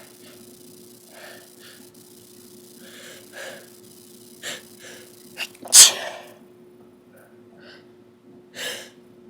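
A person sneezing: a run of short, sharp breaths builds to one loud sneeze about two-thirds of the way in, followed by another quick breath in near the end.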